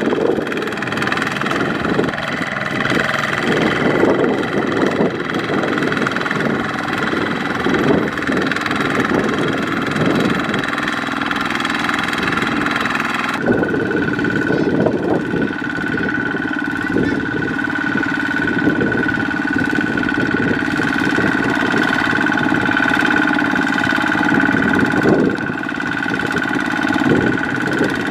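Kubota ZT155 single-cylinder diesel engine of a two-wheel walking tractor running steadily under load as it pulls a trailer through mud. The engine note changes abruptly about halfway through.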